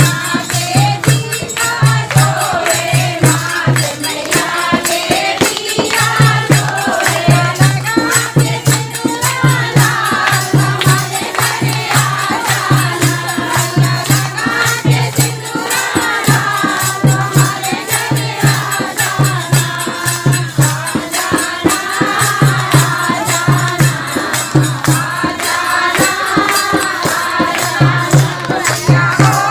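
A group of women singing a Hindu devotional bhajan in chorus, with hand-clapping and jingling percussion over a steady, repeating beat.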